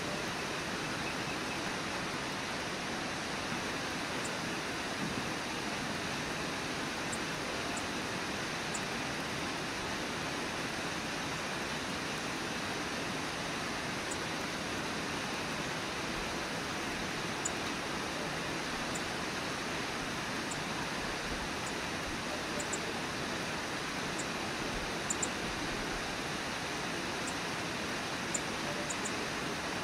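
Brooks Falls waterfall: white water pouring over the falls in a steady, even rush.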